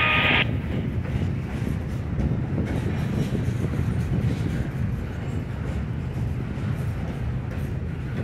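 Double-stack intermodal train rolling past: a steady low rumble of the container well cars' wheels on the rails. A high squeal with two steady tones cuts off about half a second in.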